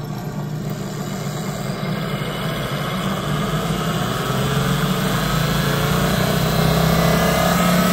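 Sun distributor tester's drive motor spinning a Bosch ignition distributor and steadily speeding up: a low hum with a rising whine that grows louder. The original Bosch rev-limiter rotor is being run up toward its 6,500 rpm cutoff.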